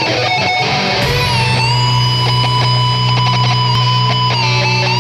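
Live heavy metal band playing an electric guitar solo: the lead guitar plays a quick run of notes, then holds one long sustained note for about three seconds over the band's bass and drums.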